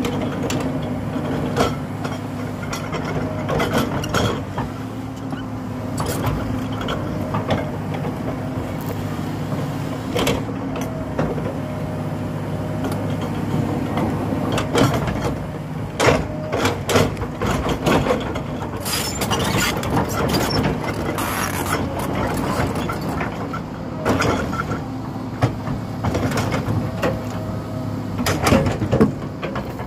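Komatsu hydraulic excavator's diesel engine running steadily under load, with a higher whine that comes and goes as the boom and bucket move. Repeated knocks, scrapes and clatters of the steel bucket digging into soil and stones come throughout, thickest about halfway through and near the end.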